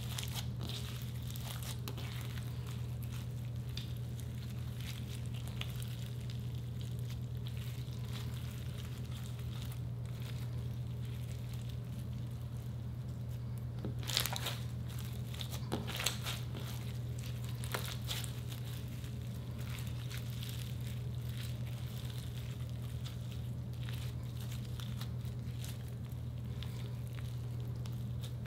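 Clear slime mixed with crushed orbeez (water bead) pieces being stretched and torn by hand, giving scattered crinkling crackles and small pops, the sharpest ones about halfway through, over a steady low hum.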